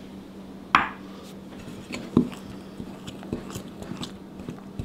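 A metal blending fork clinking and scraping against a glass mixing bowl as eggs are worked into flour and butter. There is one sharp clink about a second in, another a little after two seconds, then a run of lighter taps.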